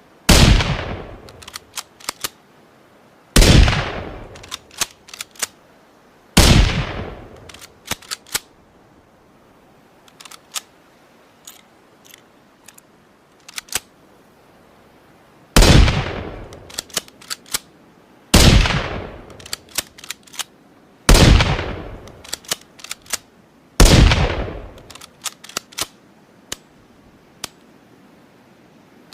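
Ruger American Rimfire bolt-action rifle firing seven single shots in two groups, three then four, each shot followed by a quick run of sharp clicks as the bolt is worked. A few quieter clicks come in the gap between the groups.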